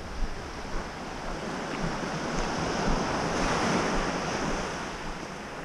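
A wave breaking and washing up a gravel beach. Its rush swells to a peak about three and a half seconds in and fades near the end, with wind rumbling on the microphone.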